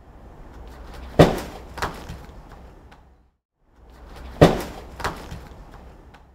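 A bare foot striking a padded kick shield in two front kicks, each a loud sharp smack followed about half a second later by a lighter thud.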